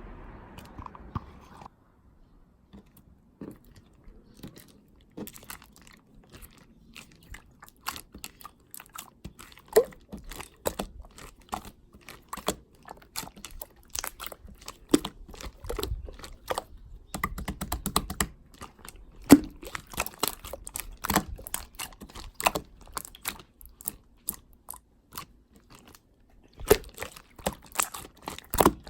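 A run of close, irregular crisp clicks and crunches, sparse at first and coming thick and fast from about five seconds in.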